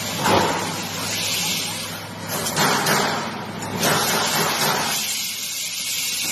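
Electric welding arc hissing and crackling in stretches that change in strength, over a steady low hum.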